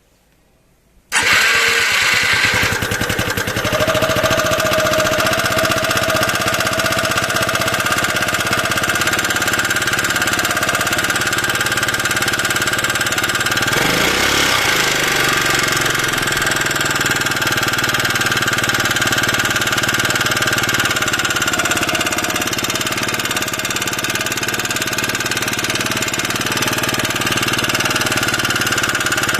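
Honda Freeway MF03 scooter's single-cylinder engine starting about a second in and then running steadily, with the metallic knocking from the engine that is the fault being traced to the top end. The pitch shifts briefly about halfway through.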